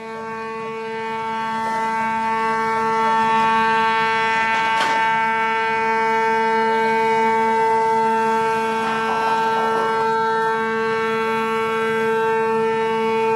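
Ship's horn sounding one long, steady blast on a single unwavering note, with a faint click about five seconds in.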